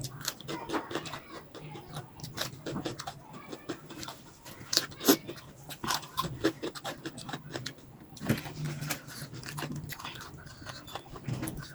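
Close-miked eating sounds of spicy keema noodles: irregular wet smacks, clicks and slurps of chewing, with a faint steady low hum underneath.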